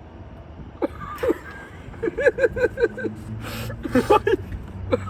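A person laughing in short rapid bursts, several quick "ha" syllables twice over, with a low steady hum underneath from about halfway in.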